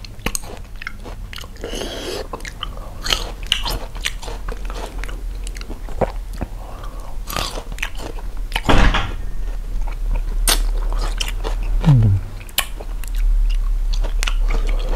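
Close-up chewing of sour pickled fruit, small pickled grapes in chili salt, with irregular wet crunching and biting clicks. A brief falling hummed "mm" comes about twelve seconds in.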